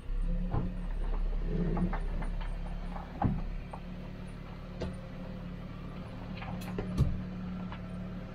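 Car engine idling steadily, heard from inside the cabin, with a few sharp knocks or clicks, the loudest near the end.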